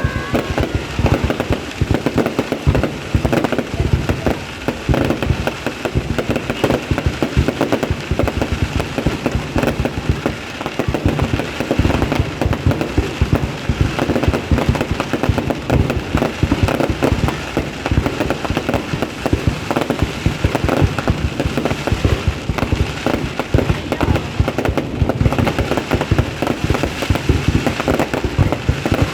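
Fireworks display: many rapid bangs and crackling pops overlapping one another without a pause.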